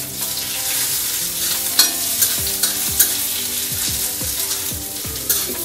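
Chopped onion frying in oil in a pan, roasting for a masala paste: a steady sizzle, with a spatula stirring and scraping against the pan, knocking sharply about three times.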